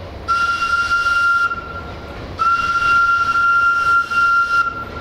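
Air whistle of a Romanian CFR class 060-DA diesel locomotive sounding two steady single-pitch blasts, a short one and then a longer one, with a hiss of air. Underneath runs the low rumble of the locomotive's Sulzer 12LDA28 diesel engine.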